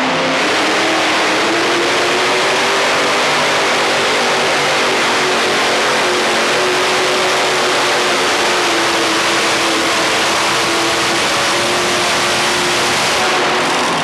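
Twin 482-cubic-inch Chevrolet big-block V8s of a modified pulling tractor running loud and flat out under load during a pull, dropping off near the end.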